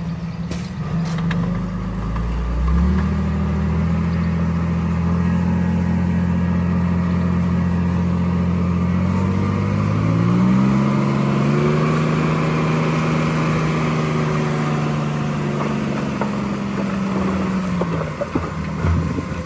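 Bulldozer's diesel engine running hard: it revs up about three seconds in, climbs higher again near the middle, holds there, then drops back near the end.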